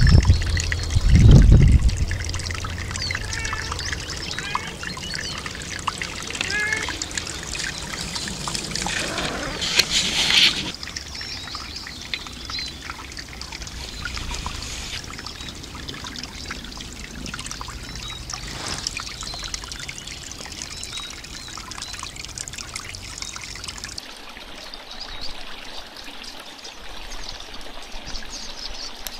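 Small stony brook running and trickling over rocks, a steady watery rush. A loud low thump comes about a second in, and a brief louder rush about ten seconds in.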